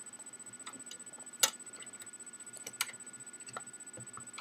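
Scattered small plastic clicks and taps as a cable connector is worked loose from the hard drive inside an Xbox 360 Slim, with the sharpest click about a second and a half in.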